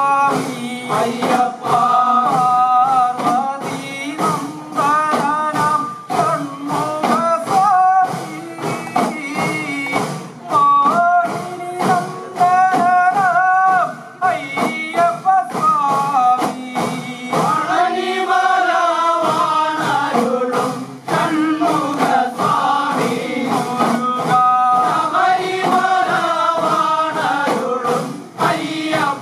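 Men's chorus singing a Malayalam chinthu pattu, an Ayyappa devotional folk song, with udukku hourglass drums beaten along in a steady rhythm.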